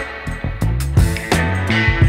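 Background music: guitar over bass and drums with a steady beat.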